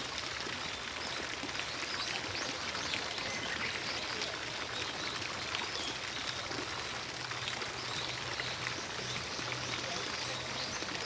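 Garden fountain splashing steadily.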